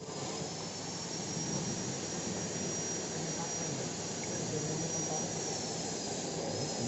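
Tapioca flour processing machinery running steadily: a constant mechanical rumble and hiss with a faint high whine above it, starting abruptly.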